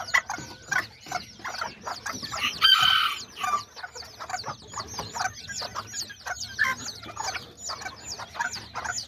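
Bantam chicks peeping: a dense chorus of high, repeated peeps several times a second. About three seconds in, a louder, lower call from an adult chicken rises above it.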